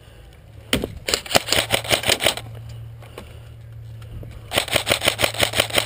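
KWA airsoft electric rifle (AEG) firing two long bursts on full auto, the first starting about a second in and the second just before the end.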